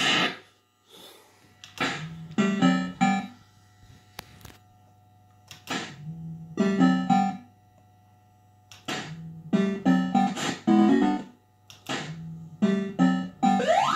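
Bell Fruit Cash Explosion fruit machine playing short electronic jingles while its reels spin, about six brief melodic phrases with quiet gaps between them.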